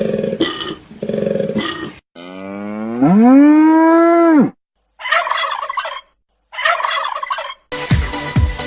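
A string of spliced animal calls with hard cuts between them: a few short repeated calls, then one long call that rises in pitch and is held before stopping abruptly, then two short rattling bursts. Electronic dance music with a steady beat starts near the end.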